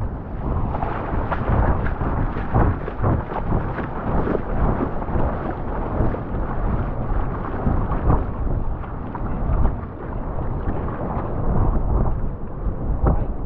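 Wind buffeting the microphone of a GoPro Max worn on a dog's harness: a loud, steady rumble, with frequent irregular knocks and thuds as the camera is jostled.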